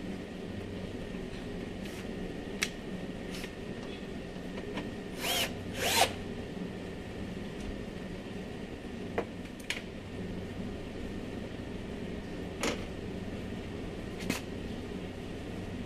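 Clicks, knocks and scrapes of a window regulator being handled and fitted inside a car's front door panel, with two brief louder rasping bursts about five and six seconds in, over a steady background hum.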